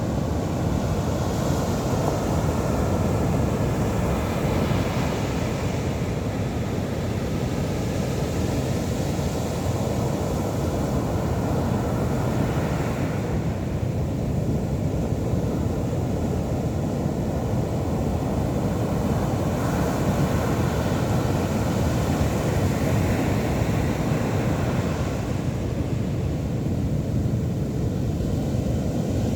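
Big ocean waves breaking on a beach: a continuous low rumble of surf with a hiss that swells and fades every few seconds as each wave breaks.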